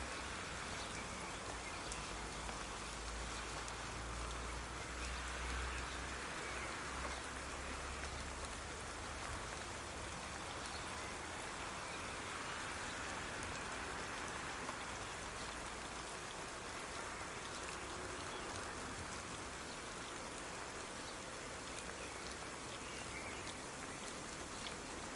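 Soft rain falling steadily: an even hiss of many small drops with faint scattered patters, and a low rumble underneath for the first several seconds.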